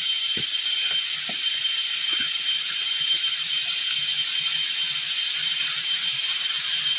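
Dense, steady chorus of forest insects: a continuous high-pitched buzzing trill with a couple of sustained whining tones, and a few faint soft knocks underneath.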